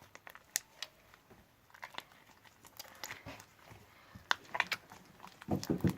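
Sticky homemade glue slime being squeezed and pulled apart by hand, making scattered small wet clicks and smacks. The slime is still very sticky. A brief voice is heard near the end.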